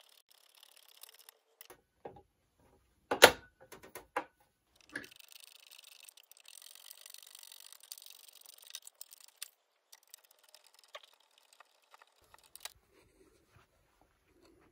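Small hand screwdriver work on a 3D-printed plastic case and circuit board: scattered light clicks and taps, one sharper click about three seconds in, and a soft scraping for a few seconds in the middle as a screw is driven in.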